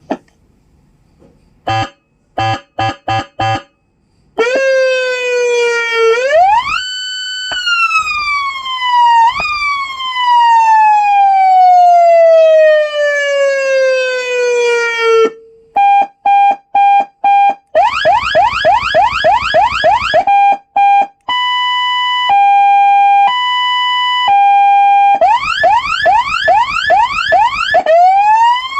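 Senken CJB100R electronic police siren speaker cycling through its tones. It gives a few short beeps, then a slow wail that rises and then falls for about ten seconds. Then come more short beeps, a fast yelp, a two-tone hi-lo alternation and another yelp, and a wail starts to rise again near the end.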